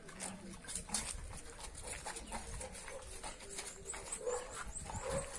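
A dog on a leash whining briefly a few times near the end, over scattered steps on a gravel street and a low wind rumble on the microphone.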